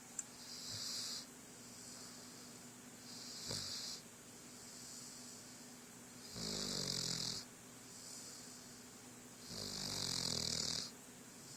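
Snoring: four snores about three seconds apart, the last two louder and longer with a buzzing rattle.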